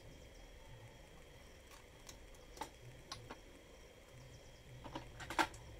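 Light clicks and knocks of an angle grinder sliding stand's plastic and metal parts being handled and fitted together, the green carriage set onto the black plastic base. The knocks come irregularly, with a cluster and the loudest knock near the end.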